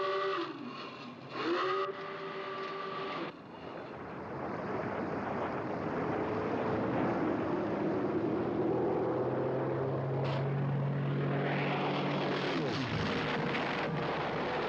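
Submarine diving alarm klaxon blaring twice, each blast sliding up in pitch at its start. Then the drone of a propeller aircraft grows louder and drops in pitch as it passes over, and a bomb bursts in the sea near the end.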